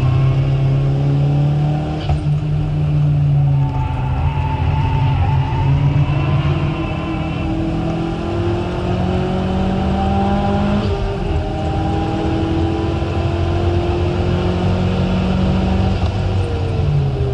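Ralliart Colt's turbocharged four-cylinder engine working hard on track, heard from inside the cabin: revs held high with steps in pitch at gear changes around 2 and 11 seconds in, and revs starting to fall near the end.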